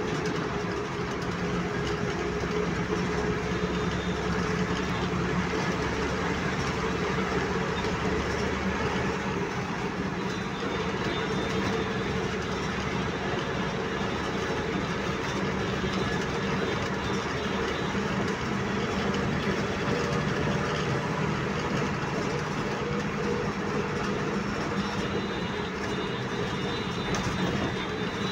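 Steady engine drone and road noise heard inside a moving vehicle's cabin.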